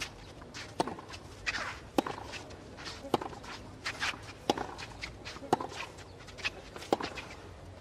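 Tennis rally on a clay court: the ball struck back and forth by racquets about once a second, as sharp pops, with the players' footsteps on the clay between hits.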